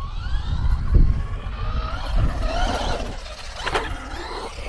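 Brushless motor and drivetrain of a Traxxas Rustler 4x4 VXL RC stadium truck whining, the pitch rising and falling as the throttle is worked. A low rumble runs under it, with a thump about a second in.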